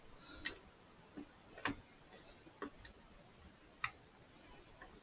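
Irregular light clicks and taps, about seven in all, from a screwdriver and metal parts while an old wall light switch is unscrewed and its wiring undone. The sharpest clicks come about half a second in, near the middle, and near the end.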